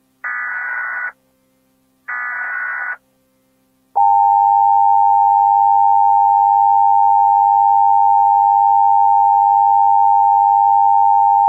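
Emergency Alert System alarm: two short screeching SAME data bursts about a second apart, then the EAS two-tone attention signal held steady for about seven and a half seconds.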